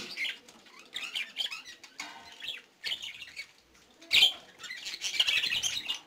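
Budgerigars chirping and chattering in short scattered calls, with a brief loud rustle about four seconds in and busier chatter near the end.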